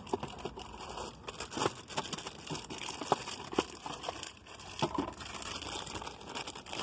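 Crinkling plastic packaging as a new ignition switch is unwrapped and handled, with scattered small clicks and taps.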